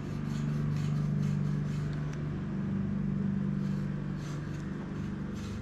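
Steady low drone running throughout, with faint light ticks and scraping of a gear shift cable being pushed through a mountain bike frame's internal routing.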